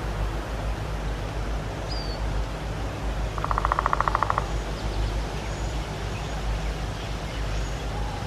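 Steady outdoor noise with a low hum, and a rapid rattling trill lasting about a second near the middle, with a faint short chirp before it.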